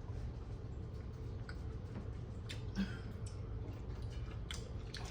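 Eating noises: a handful of light, scattered clicks and ticks, as of shells and mouth sounds during a mussel and shrimp meal, over a steady low hum.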